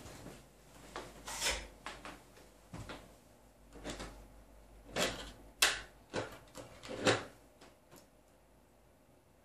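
Small hardware being handled on a tabletop: a loose series of light clicks, taps and rattles, with a few sharper knocks about a second and a half, five, five and a half and seven seconds in, then it goes quiet.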